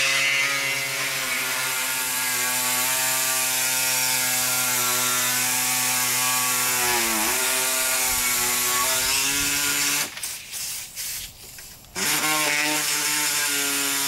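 Pneumatic air saw running steadily while cutting hinge openings in a car body side panel, its pitch dipping briefly under load about seven seconds in. It stops for about two seconds near the end, then starts again.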